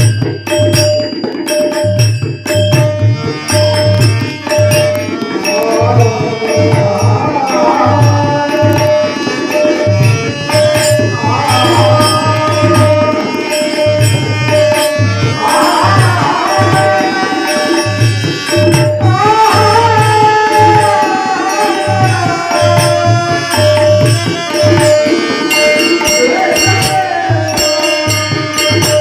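Devotional bhajan music: tabla playing a steady rhythm with deep bass-drum strokes under a held drone note, while a singer's voice rises and falls in ornamented phrases.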